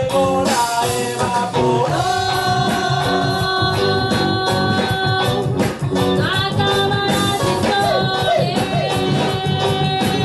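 Live reggae band playing: a woman sings long held notes over electric guitars, bass, keyboard and drum kit.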